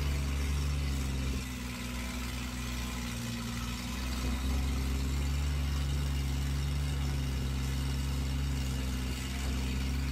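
Skid-steer loader's engine running steadily, a low, even drone. It drops slightly in level about a second and a half in and picks up again around four and a half seconds.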